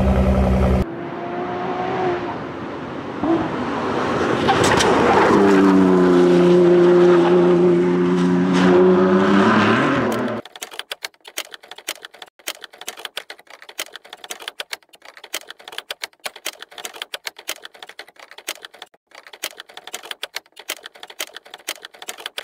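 Third-generation Ford GT's twin-turbocharged 3.5-litre V6 running through its exhaust, the engine note dipping and climbing. About ten seconds in it cuts off and rapid typewriter-like key clicking follows.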